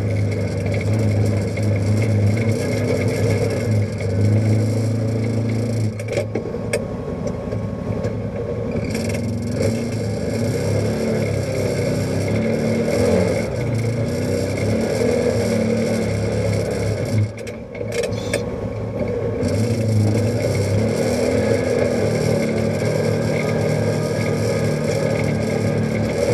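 Side-by-side UTV's engine running while driving a rough dirt trail, heard from inside the cab, its pitch rising and falling with the throttle. About two-thirds of the way through the engine briefly drops off, as if the throttle is let off, then picks up again.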